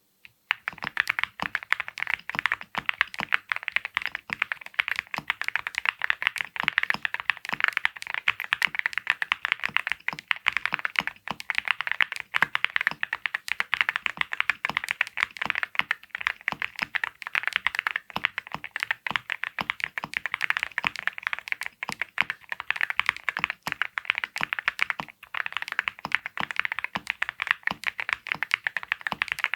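Fast, continuous typing on a Cerakey Nada65 Panda mechanical keyboard fitted with ceramic keycaps: a steady stream of sharp, bright keystroke clicks that begins about half a second in.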